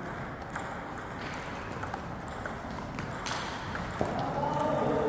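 Table tennis rally: the ball clicking off the bats and the table in an irregular series of sharp ticks.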